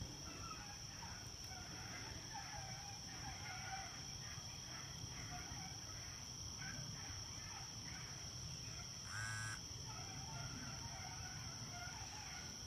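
A pack of beagles baying faintly in the distance while running a rabbit, with irregular short cries throughout and one slightly louder call about nine seconds in. A steady high drone of insects runs underneath.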